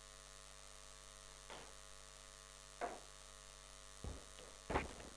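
Steady low electrical mains hum, with a few faint short knocks scattered through it.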